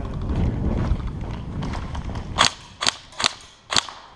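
Four sharp cracks about half a second apart, typical of an airsoft gun firing single shots. They come after a stretch of wind buffeting the microphone.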